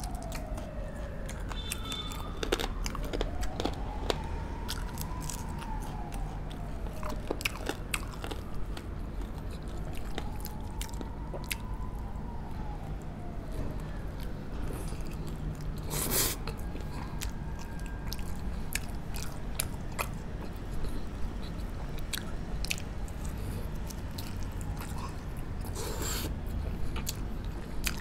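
Close-up mouth sounds of a person biting and chewing coconut-braised pork ribs and rice, with frequent sharp clicks and smacks. Faint rising-and-falling whines come and go behind it.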